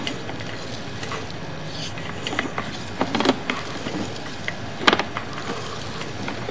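Sewer inspection camera's push cable being fed into a cast iron drain line: a steady hiss with scattered knocks and rattles, the sharpest about five seconds in.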